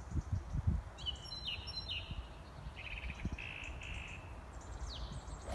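Birds singing: a few short falling chirps, then a run of quick repeated notes, over low wind rumble on the microphone. At the very end, one sharp crack as a golf club strikes the teed ball.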